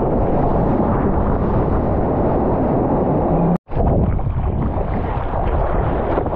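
Wind buffeting the microphone of a surfboard-mounted action camera, with sea water rushing and splashing around the board. The sound cuts out abruptly for an instant a little past halfway.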